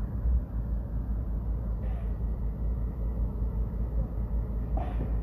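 Low, steady rumble of demolition work by an excavator tearing down a building, with two brief, faint higher sounds about two seconds in and near the end.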